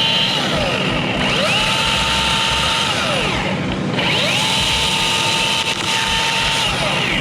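Milwaukee battery electric chainsaw cutting a limb in three runs. Each time its motor whine glides up to a steady high pitch, holds, then winds down.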